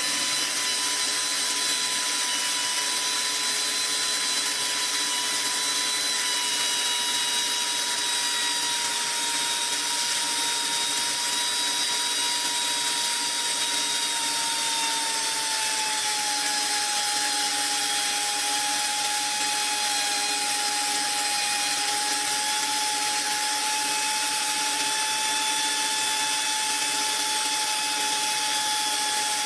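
Metal lathe running steadily with a high whine over a hiss. The whine drops slightly in pitch about halfway through.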